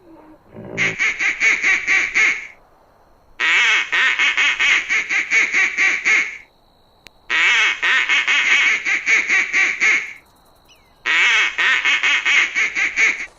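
An animal calling in four runs of quick, repeated harsh notes, each run lasting two to three seconds with short pauses between.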